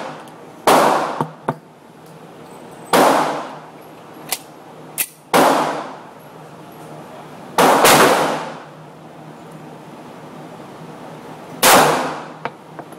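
Beretta 92FS Inox 9mm pistol being fired at a slow, uneven pace: about six shots, each with a ringing tail, two of them in quick succession a little before the middle. Lighter sharp clicks fall between some shots.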